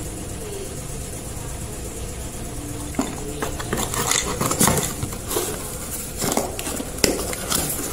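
Grinding discs handled and set back into their cardboard box, then the box lid folded shut: a few sharp clicks and knocks with cardboard rustling, starting about three seconds in.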